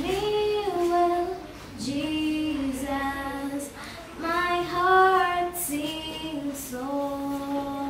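A child singing solo and unaccompanied, holding long notes that step up and down between phrases, with short pauses for breath.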